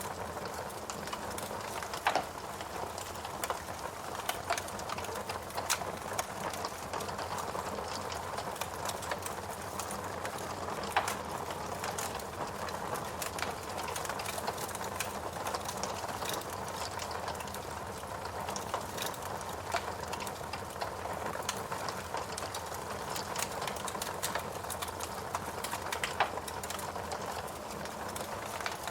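Wood fire burning in a fireplace: a steady hiss and rustle of flames with frequent small crackles and a few louder pops from the logs.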